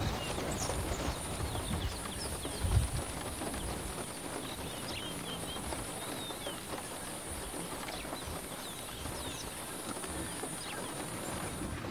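Bushveld ambience: many small birds chirping and whistling in short scattered calls over a steady high-pitched buzz. A low rumble fades out in the first few seconds, with a single thump about three seconds in.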